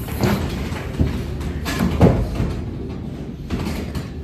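Several knocks and thuds over a steady low hum, the loudest about two seconds in.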